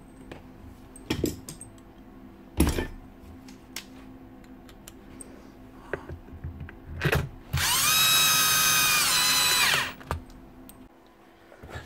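A few knocks of metal and plastic parts being handled, then a drill-driver runs for about two seconds driving a screw into the Hilti TE905 hammer's housing. Its whine rises as it spins up and sags near the end as the screw seats, then stops.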